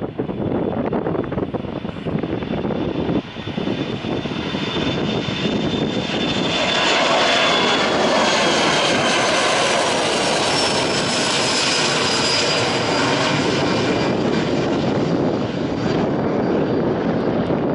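Twin-engine Boeing 737 jet airliner taking off and climbing out at take-off thrust. A broad jet roar swells to its loudest in the middle as the plane passes, and high fan whines fall in pitch.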